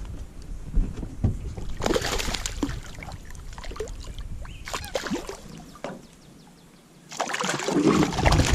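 Water splashing beside a small fishing boat, with knocks on the hull, in several noisy bursts. A hooked bass is being brought to the boat.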